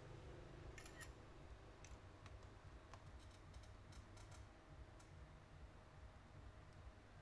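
Faint scattered clicks and light ticks of small repair tools handling an iPhone's parts, bunched together about a second in and again around the middle, over a quiet room hum.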